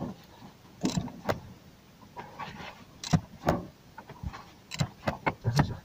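Claw-type oil filter wrench clicking and knocking against a spin-on oil filter, about seven sharp, irregular knocks, as the tight filter is worked loose.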